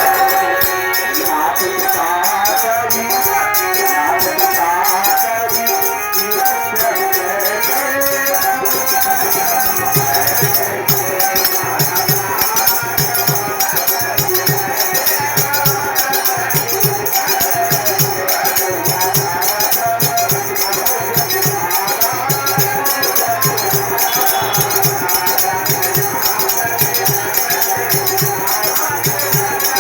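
Instrumental music with a constant shaker-like rattle; a steady low drum beat comes in about ten seconds in, roughly one beat a second.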